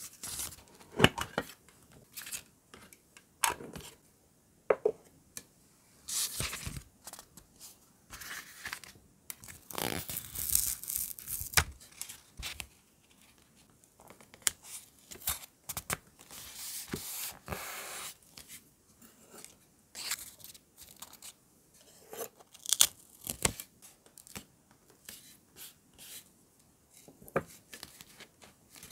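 Paper handling on a notebook page: stickers and paper cutouts peeled, placed and pressed down, heard as scattered short rustles, crinkles and peeling sounds, with light clicks from metal tweezers.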